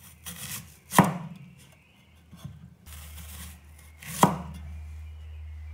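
Kitchen knife cutting the tops off snow pears on a chopping board: twice a short rasp of the blade through the fruit, then a sharp knock as it hits the board, about three seconds apart.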